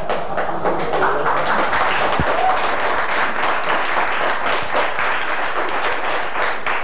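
A hall audience applauding, a dense steady crackle of many hands clapping, with a single dull thud about two seconds in.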